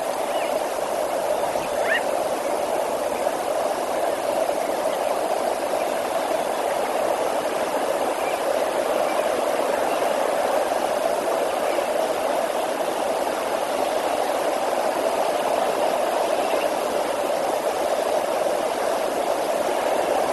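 Steady, even rushing of the Olifants River's flowing water.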